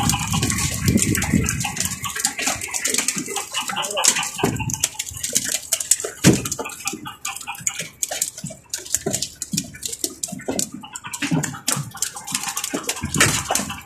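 Water splashing and an irregular clatter of knocks as snoek are hauled over the gunwale of a fishing boat on handlines and flap among the catch in wooden fish bins.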